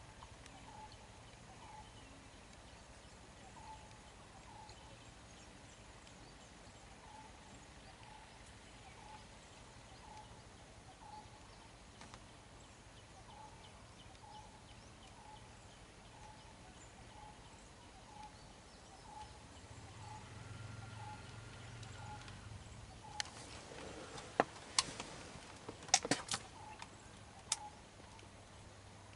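Quiet outdoor ambience. A faint low hum is joined by a soft short note repeating about every two-thirds of a second. Near the end come a few sharp clicks and knocks, the loudest sounds.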